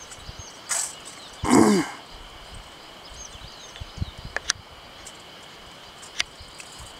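Outdoor ambience: a steady high insect drone with small bird chirps over it. About one and a half seconds in there is a brief, louder sound with a bending pitch, and a few light ticks follow later.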